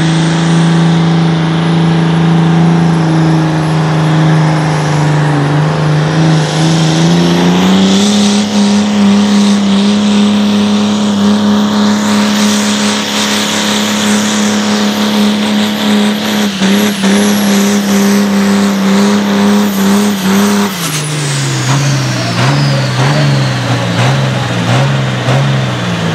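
Competition pulling tractor's engine at full throttle hauling the sled: the note climbs about seven seconds in and holds high and steady with a high whine above it, then drops about twenty seconds in to a lower, unsteady note as the throttle comes off at the end of the pull.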